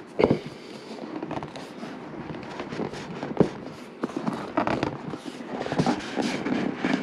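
Rigid cardboard slide-out box being eased open by hand, the inner tray rubbing against the tight outer sleeve with a continuous irregular crackle of small clicks and scrapes.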